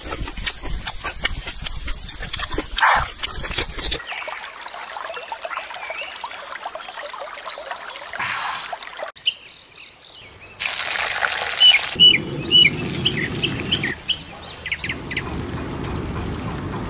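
Chewing and slurping over a steady high-pitched whine, then outdoor ambience with water trickling and birds chirping, and near the end wooden chopsticks stirring squid in a stone pot.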